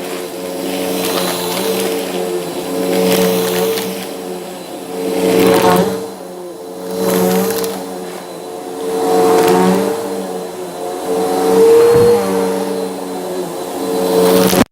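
Bissell vacuum cleaner running, with its motor's steady whine under the crunching of the brushroll on the floor. The crunch swells and fades about every two seconds.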